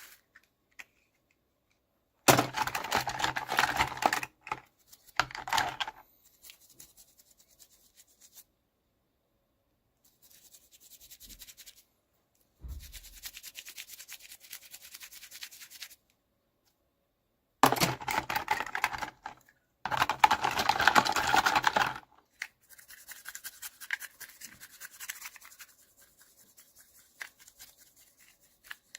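Toy packaging being handled and torn open close to the microphone, in scratchy, crackling bursts of one to two seconds with silent pauses between them. The loudest bursts come a couple of seconds in and again about two-thirds of the way through.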